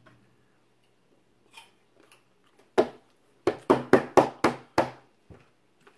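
A sharp knock, then a quick run of about six loud knocks, about four a second, lasting just over a second.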